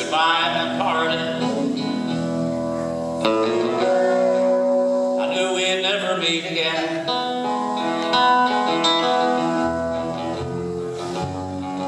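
Instrumental introduction to a slow country ballad: a plucked guitar melody over long held notes.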